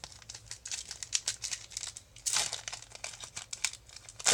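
Crinkling and tearing of a plastic trading-card pack wrapper being torn open, a run of quick crackles with a louder rip about halfway through and a sharp crackle near the end.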